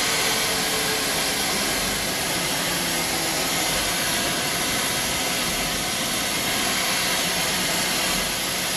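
Compressed air hissing steadily from the burst air-gun line of a Scania truck's air system, heard inside the cab over the engine and road noise: a leak that the driver means to pull over and fix.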